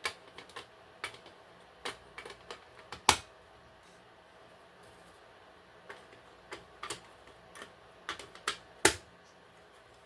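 Handling noise from smoke alarms being picked up and set down: scattered, irregular light clicks and taps. There are two louder knocks, one about three seconds in and one near the end, and a quieter pause in the middle.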